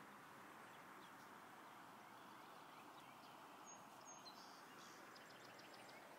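Faint, even rush of floodwater from a river running high, with a few faint high bird chirps in the middle.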